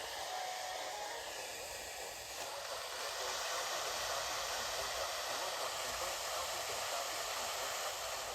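Steady radio static hiss from a receiver with no program audio coming through, growing slightly stronger about three seconds in.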